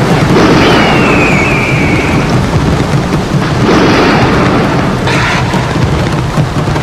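Heavy rain with rolling thunder, loud and continuous, with several swells. About a second in, a whistle-like tone slides gently downward for over a second.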